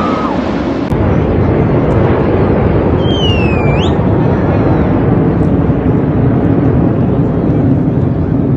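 Jet aircraft noise from the air show, its high whine fading out in the first moment, then a steady low rumble of distant aircraft and open-air crowd noise. A short whistle falls then rises about three seconds in.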